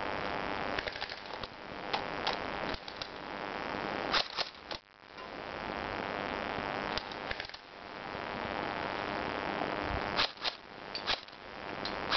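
Airsoft guns firing scattered shots: sharp cracks, some single and some in quick clusters of two or three, over a steady rushing noise.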